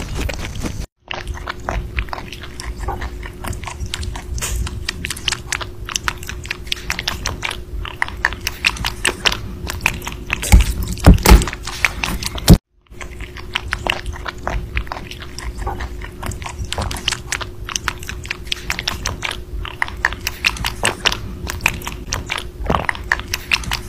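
Rabbits chewing fruit close to the microphone: rapid, moist crunching and nibbling clicks, first a rabbit eating grapes, then one eating strawberries. The sound breaks off briefly twice, about a second in and about halfway, where one clip cuts to the next, and a faint steady hum runs underneath.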